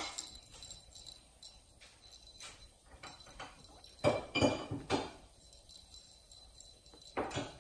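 Small bells on hanging pom-pom cat toys jingling lightly in short bursts as a kitten bats at them, with a louder cluster of knocks about four seconds in and another just before the end.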